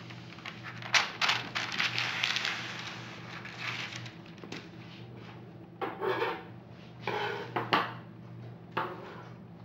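Sheet of baking parchment being unrolled from its roll and smoothed flat on a tabletop, crinkling and rustling in irregular bursts, busiest in the first few seconds.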